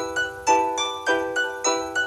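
A Samsung Galaxy S8 ringtone playing: an electric-piano-like melody of quick struck notes, about three a second, each fading.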